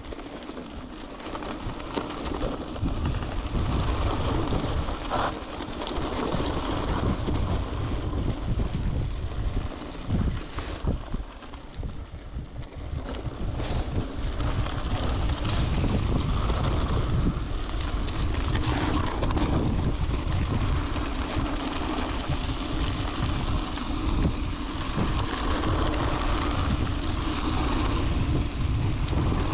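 Wind buffeting the microphone of a camera riding on a mountain bike on an off-road trail, over steady rolling noise with scattered knocks and clicks from the bike.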